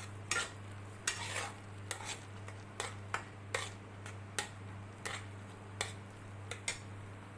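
Flat steel spatula stirring and scraping thick, cooking papaya jam around a kadhai, about a dozen short scrapes at an uneven pace, the last shortly before the end. A steady low hum sits underneath.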